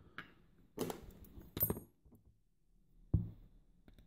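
Small metal parts of a pin-tumbler lock cylinder clinking and tapping as its pins are taken out, a short clatter with a brief metallic ring, then one sharp knock about three seconds in.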